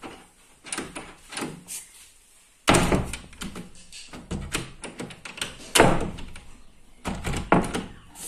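A wooden door fitted with a mortise lever-handle lock is worked and shut against its frame. A few light clicks from the handle and latch come first, then three heavy knocks about three seconds apart; the first, a little under three seconds in, is the loudest, and rattling follows each one.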